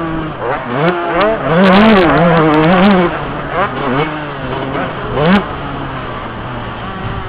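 Yamaha YZ125 two-stroke motocross engine, heard from the rider's helmet, revving up and down repeatedly as the throttle is opened and closed. After about three seconds it runs lower with a few short throttle blips.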